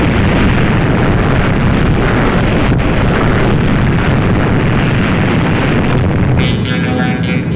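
Long, loud rumbling roar of a huge explosion, heard over footage of a nuclear test blast. Music comes in about six and a half seconds in as the roar fades.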